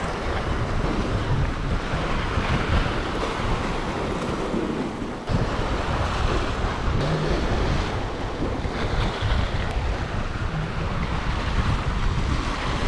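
Sea waves washing against a rocky shore, with wind rumbling on the microphone.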